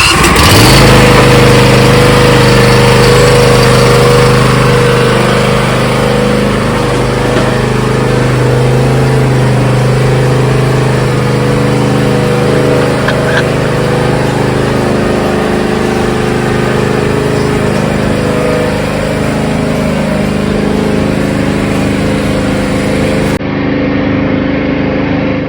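Zero-turn riding mower's engine running steadily and loud close by, with its pitch holding nearly constant.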